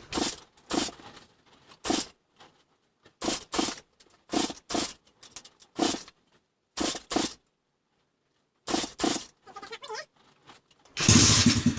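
Dirt bike engine being started: a string of short sputters, one or two at a time, then a louder, longer burst near the end as it briefly fires.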